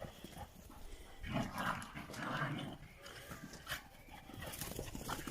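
A dog making short, low vocal sounds, starting about a second in and lasting just over a second.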